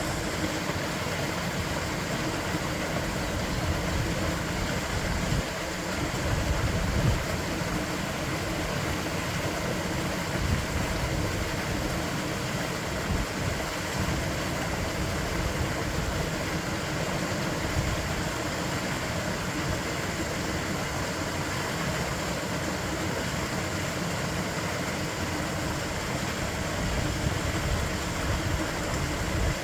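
Waterfall: a steady rush of falling water, heaviest in the low end, with small swells in loudness.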